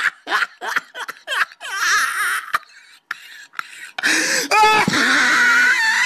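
Bursts of laughter, then, about four seconds in, a high-pitched wailing, whimpering voice with a wavering pitch.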